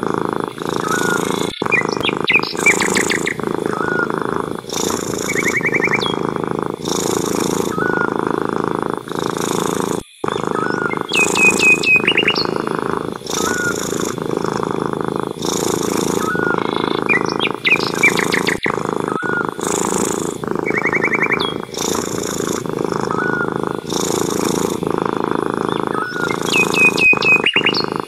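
A cat purring steadily, with short bird chirps and trills coming every few seconds over it.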